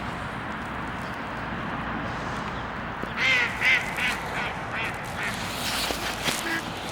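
A duck quacking: a quick run of about seven quacks a few seconds in, each fainter than the one before, with a couple of softer calls near the end.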